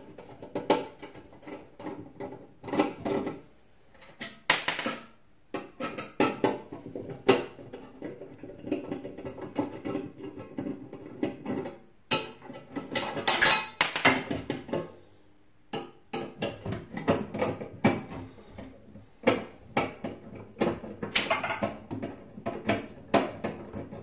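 Irregular metallic clicks, knocks and rattles as a microwave oven's sheet-metal housing and internal parts are handled and worked on by hand, with some ringing from the metal. The clatter pauses briefly twice.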